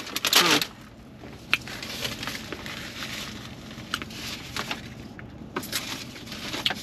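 Paper takeout bag and napkins rustling, with scattered sharp crinkles and crackles, as napkins are pulled out of the bag.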